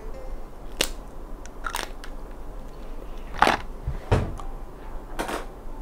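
Five short, crisp clicks and crunches at irregular intervals, the loudest about three and a half seconds in, from desk items being handled.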